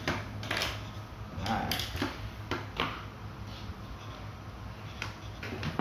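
Plastic toy guns and suction-cup darts handled on a tabletop: a string of scattered light clicks and clacks, the sharpest near the end, over a low steady hum.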